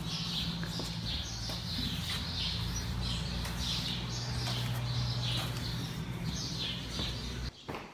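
Strokes of a rubber grooming brush over a horse's coat: a scratchy swish about once or twice a second, over a steady low hum that cuts off just before the end.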